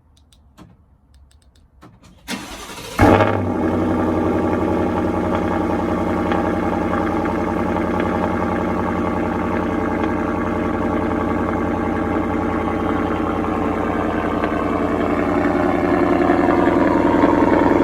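Ford F-150 5.0 V8 with a Corsa Xtreme exhaust starting up. A few faint clicks, a brief crank, then the engine catches about three seconds in with a loud flare and settles into a steady idle that grows a little louder near the end.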